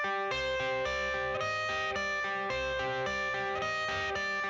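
Background music: an instrumental guitar intro with notes changing on a steady beat.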